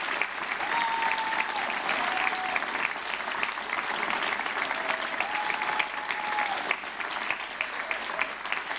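Theatre audience applauding steadily, a dense patter of many hands clapping, with two long held tones over it.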